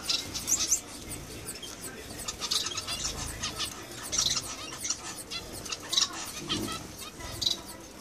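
A mixed flock of small caged finches, Gouldian and zebra finches among them, chirping: many short, high cheeps at irregular intervals, overlapping one another.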